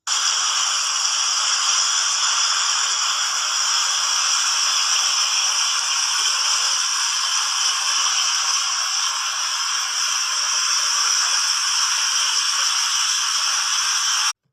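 Water fountain running, its falling spray making a steady, even hiss.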